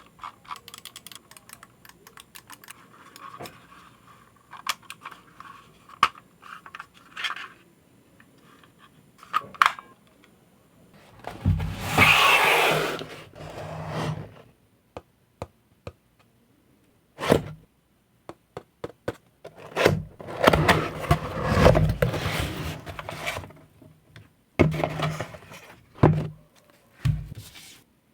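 Unboxing handling sounds: packaging and contents being slid, scraped and set down, with scattered clicks and knocks. A longer scrape comes about twelve seconds in, and a busy run of handling noise follows around twenty seconds in.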